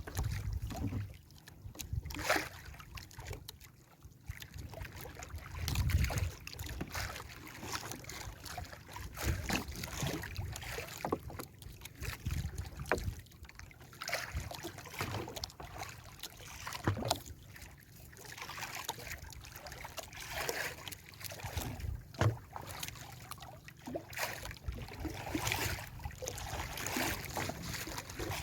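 Sea water splashing and lapping irregularly against a small fishing boat, with gusts of wind rumbling on the microphone.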